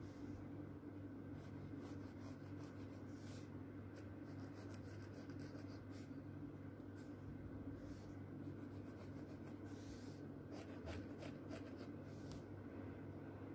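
Faint scratching strokes of a drawing tool on paper, in short irregular runs, over a steady low hum.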